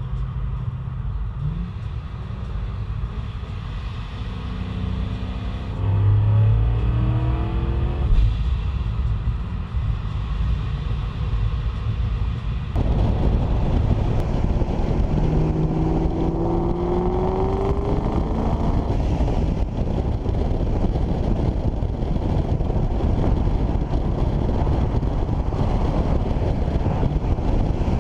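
Supercharged Ford Mustang GT's V8 running under way, its exhaust rising in pitch on two throttle pulls. Road and wind noise run underneath.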